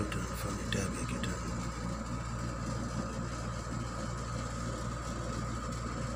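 Steady low mechanical hum with a thin, constant high whine, and a few light clicks in the first second or so.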